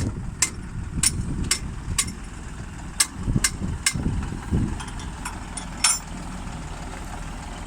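An engine idling steadily with a low rumble, over a run of sharp clicks about two a second that grow fainter and stop about six seconds in.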